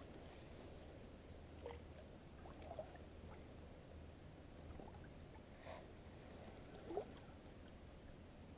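Near silence: calm water, broken by about four faint, short water plinks, the last one the loudest.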